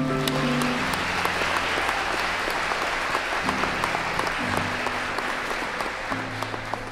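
Crowd applauding, a dense patter of clapping, with soft background music underneath.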